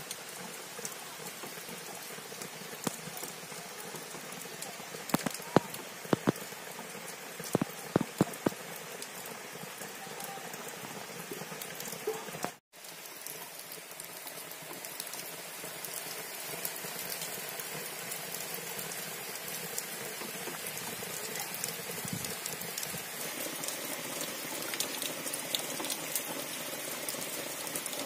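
Steady heavy rain falling on trees, plants and a wet stone path. A handful of sharp taps come between about five and eight seconds in, and the sound cuts out for an instant near the middle.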